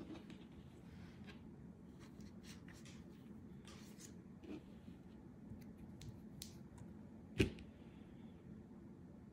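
Faint handling sounds as paper leaflets and a microfiber cloth are laid out on a table: scattered soft rustles and light clicks, with one sharper knock about seven seconds in, over a low steady hum.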